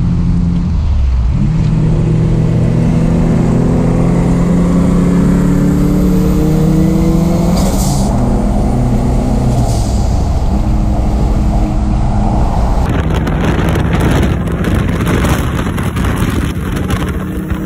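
Turbocharged Toyota pickup's engine heard from inside the cab, its note rising steadily as it pulls hard through a gear, dropping at a gearshift about eight seconds in with a short hiss, then pulling again. In the last few seconds the same truck is heard from outside as it drives past.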